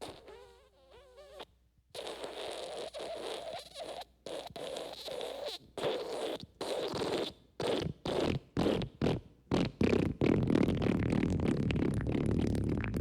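Wet fart: a short wavering, buzzy toot, then a long run of wet, spluttering farts in bursts that come faster and closer together until they run into one continuous splutter near the end.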